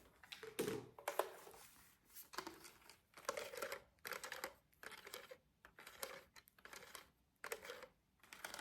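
Hard plastic toy cash register being handled and set down: soft irregular taps, clicks and rustles, a few each second.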